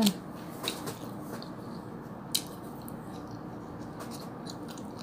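Soft eating sounds: fried food being picked apart with the fingers and chewed, heard as a few light clicks and crackles, one sharper click about two and a half seconds in, over a faint steady hiss.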